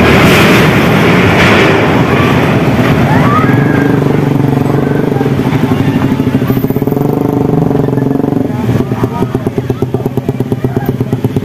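A vehicle engine running close by, a steady low hum that turns into a fast, even pulsing in the last few seconds.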